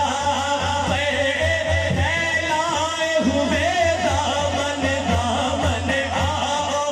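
A man singing a devotional naat unaccompanied through a microphone and PA loudspeakers, his voice rising and falling in long, drawn-out wavering lines without a break.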